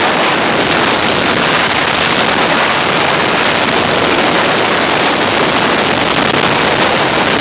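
Loud, steady rush of airflow buffeting the microphone in open-air flight under a weight-shift wing.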